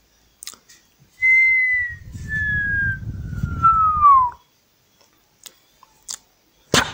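A single whistled tone gliding slowly downward in pitch for about three seconds, with a low rumble under it. A few short clicks follow, and there is one sharp, louder click near the end.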